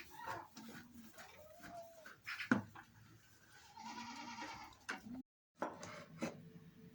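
Goats bleating, several calls in a row, with a sharp knock about two and a half seconds in. The sound cuts out briefly near the end.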